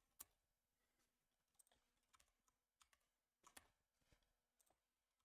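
Faint, scattered keystrokes on a computer keyboard, about a dozen soft clicks in short runs.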